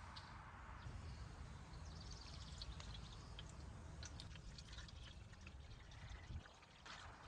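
Coolant being poured into the skid steer's cooling system: a faint trickle of liquid with a few small clicks.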